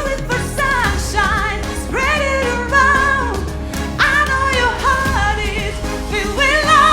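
A woman singing a pop song over an instrumental backing, holding long notes with a wide vibrato.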